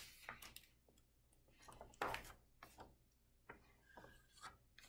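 Faint, scattered rustles and taps of a picture book's paper pages being turned and handled.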